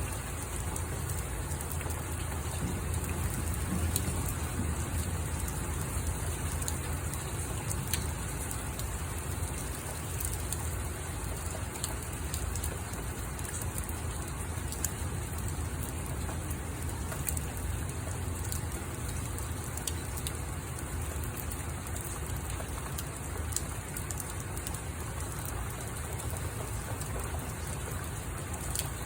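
Steady rain falling, a continuous hiss with many separate drops ticking on a surface, over a steady low rumble.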